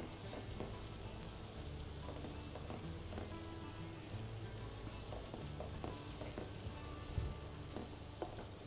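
Alfredo sauce of butter, parmesan and cream simmering and sizzling in a pan on the stove, with a few light clicks of a utensil.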